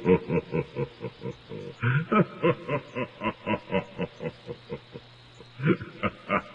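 A person laughing in quick rhythmic pulses, about four a second, that pause briefly near the end and then start again.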